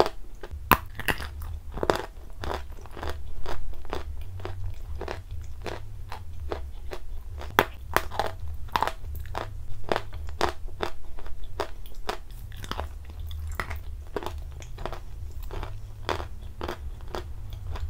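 Close-miked mouth sounds of someone eating soaked chalk and clay paste: irregular wet crunches and chewing, several a second, over a low rumble.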